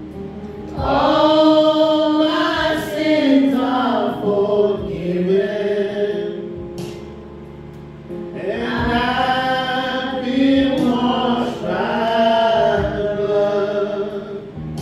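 Church worship music: several voices singing over steady instrumental backing, in two long sung phrases with a quieter instrumental lull between them.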